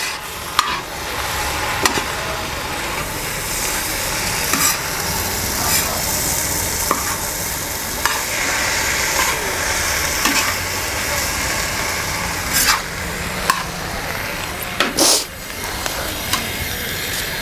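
A spoon stirring boiled white peas and potatoes into hot masala in a pan, the mixture sizzling steadily. The spoon knocks and scrapes against the pan now and then, most sharply near the end.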